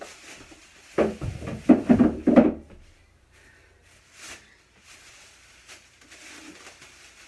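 Knocking and clattering of groceries being handled and set down, in a loud burst of several knocks from about one to three seconds in, then a few faint small knocks and rustles.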